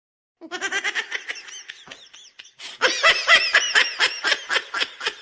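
Laughing sound effect: a quick run of high-pitched "ha-ha" pulses. It starts about half a second in and grows louder near the middle.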